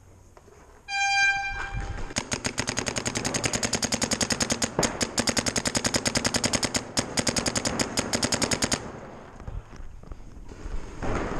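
A short horn blast about a second in, then paintball markers firing in rapid, even strings of about a dozen shots a second, stopping abruptly near nine seconds in.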